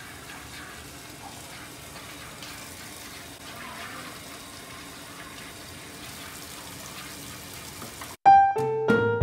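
Water running steadily from taps at a fish-cleaning station, splashing onto the table where fish are being rinsed. Piano music comes in about eight seconds in.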